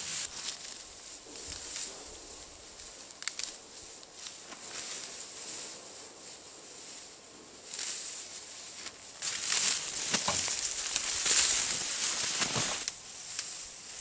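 Dry grass rustling and crackling as it is grabbed and pulled up by hand, with a few sharp snaps of stems. The rustling grows louder in the second half.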